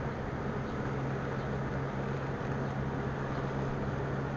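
Steady low hum with an even hiss, unchanging throughout: constant background machine or room noise.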